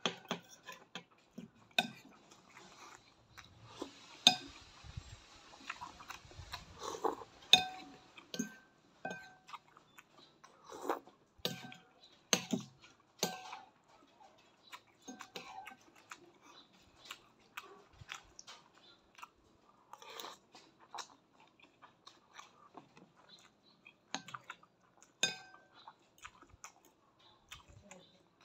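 A person eating noodle soup with mouth sounds of slurping and chewing, and a metal spoon and fork clinking against a ceramic bowl. Some clinks ring briefly. There is a longer noisy stretch, likely a slurp, about four to seven seconds in.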